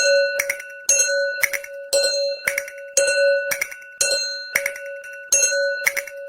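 Japanese railroad crossing warning bell ringing its steady "kan-kan" alarm, about two strikes a second, each strike ringing on briefly.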